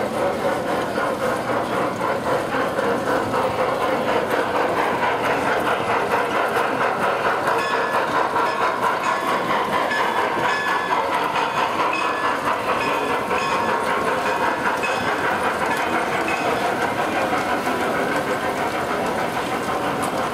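G scale model steam train, a locomotive pulling a string of hopper cars, running past on the layout track with a steady rhythmic clatter that pulses a few times a second.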